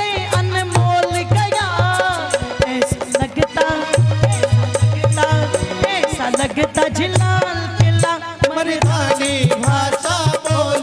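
Folk-style music: a gliding melody over a steady, repeating low drum beat.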